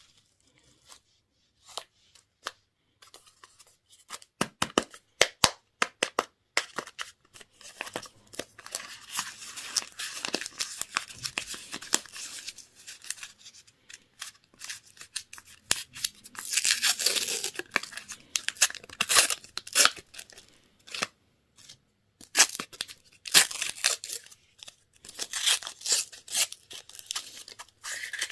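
Candy wrappers being torn open and crinkled by hand: a long run of crackling, tearing and sharp clicks that comes in clusters.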